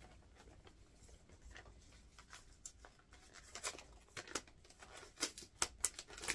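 A paper envelope being opened and handled by hand: crisp paper rustling and crackling that starts about three and a half seconds in, after a quiet stretch.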